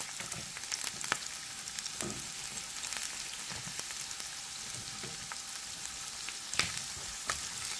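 Chopped onions, garlic and spring-onion leaves sizzling in hot oil in a pan: a steady hiss with scattered crackles.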